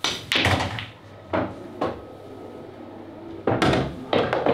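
Pool shot: the cue strikes the cue ball, then a string of sharp clacks and knocks as the balls hit each other, the cushions and the pockets. The loudest knocks come in the first half second and again near the end.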